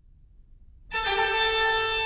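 Background music: a held keyboard chord, organ- or harpsichord-like, that comes in suddenly about a second in after a faint low hum.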